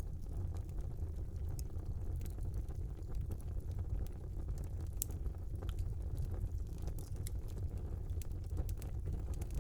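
Fire burning in a small fireplace: a steady low rumble of flames with scattered sharp crackles and pops, one louder pop about halfway through.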